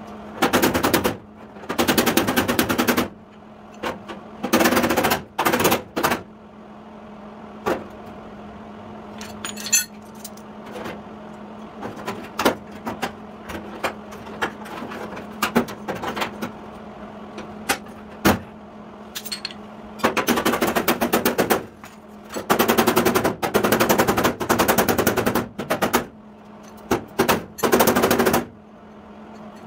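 Body hammer rapidly striking the rusty sheet-steel rear fender of a 1953 Chevy truck against a dolly, in fast runs of metallic taps lasting a second or two each with short pauses between, as the damaged metal is roughed back into shape. A steady low hum runs underneath.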